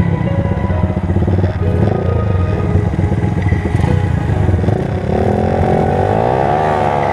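Motorcycle engine running at speed while riding. About five seconds in, its pitch starts to rise and fall in waves.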